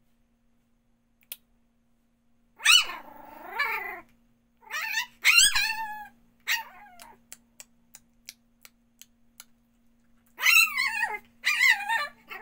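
Small puppy yapping: about six high-pitched yips that fall in pitch, in two bunches with a pause between, the last two near the end.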